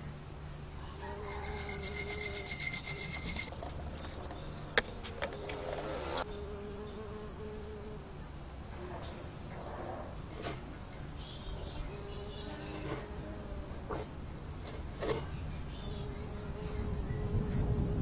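A wire brush scrubs an aluminium motorcycle wheel hub in quick rasping strokes for a couple of seconds about a second in. This is followed by scattered clicks and taps as the metal hub and brush are handled. A steady high insect-like trill carries on underneath throughout.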